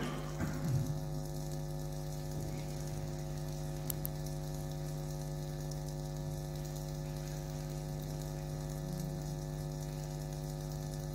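Steady electrical mains hum from the amplified sound system, a buzz with many evenly spaced overtones, with a few faint knocks in the first second.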